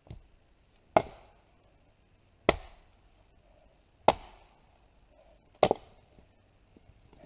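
Double-bit axe splitting straight-grained arbutus firewood: four sharp chops, about a second and a half apart.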